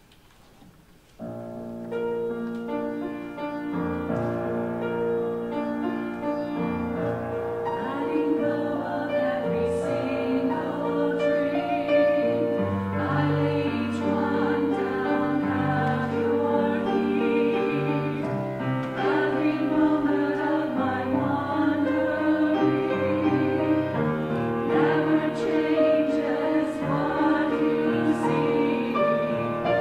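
Music starts about a second in: a church choir of men's and women's voices singing an anthem with piano accompaniment.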